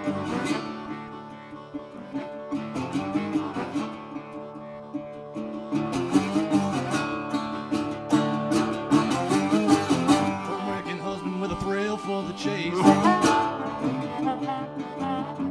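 Instrumental blues break: a harmonica cupped against a handheld microphone playing a solo of held, bending notes over a strummed acoustic guitar.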